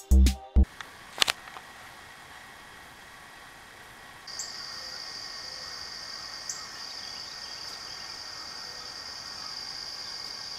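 A high, steady insect trill starts about four seconds in and keeps on over quiet outdoor background. The tail of electronic music cuts off just after the start, and a single click comes about a second in.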